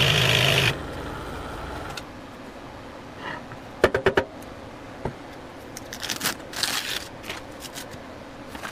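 Scroll saw running as it cuts black walnut, stopping just under a second in. Then a quick cluster of sharp clicks about four seconds in, a single click, and scraping as the wood is moved on the saw table.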